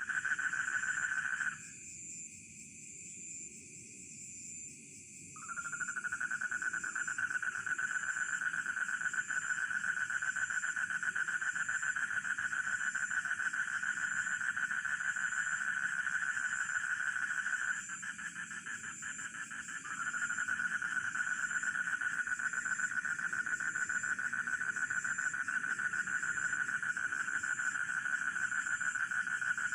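Rice-field frogs and crickets calling together. A dense, unbroken mid-pitched trilling chorus cuts off abruptly twice, for about four seconds near the start and about two seconds in the middle, while a high cricket chirp pulses evenly over it throughout.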